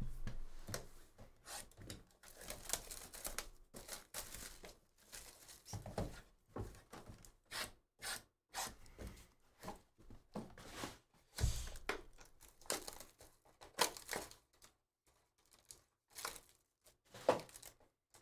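Plastic wrapping and foil trading-card packs being torn open and crinkled by hand, in irregular rustles and sharp snaps with short pauses, along with the light handling of card boxes and cards.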